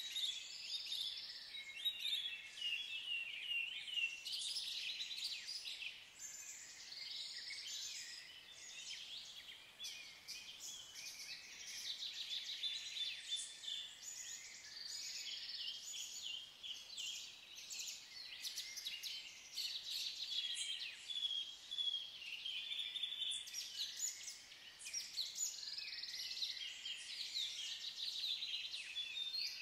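Several songbirds singing at once: a steady, overlapping stream of high chirps and short trills.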